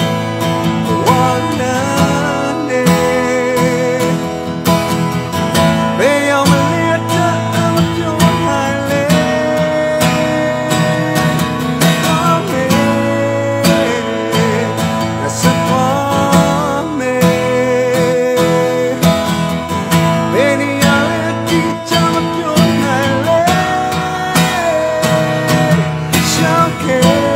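A Burmese-language song: a voice singing held, wavering notes over guitar-led accompaniment.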